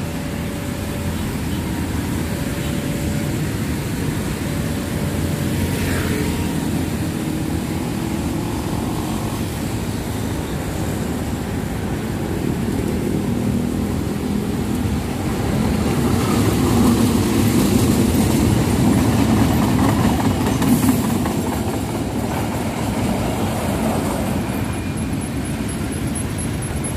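Diesel locomotive engine running as the locomotive and its train of wagons approach and pass along the track, a steady low hum with rail noise. It grows louder and is loudest a little past the middle, as the train goes by.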